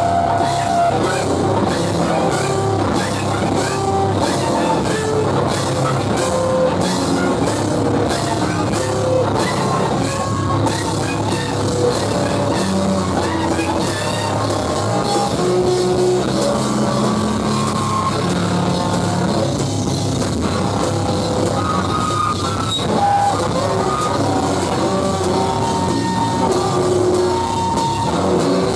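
Live rock band playing loud: electric guitar, bass guitar and drum kit together, with a fast regular beat of hits through the first ten seconds or so.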